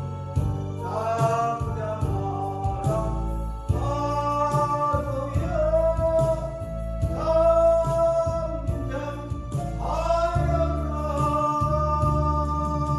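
A solo voice singing a Korean Christian praise song over instrumental accompaniment, holding long notes.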